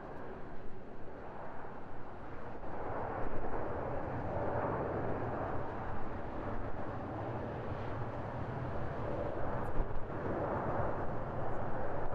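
Jet engine noise from an Airbus A350-900's Rolls-Royce Trent XWB engines as the airliner rolls out on the runway just after touchdown. It is a steady, noisy sound that grows louder about three seconds in.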